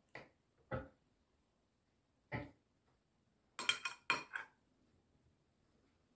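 Metal spoon clinking and scraping against a small glass bowl while eating, a handful of short separate clinks, the loudest cluster a little under four seconds in.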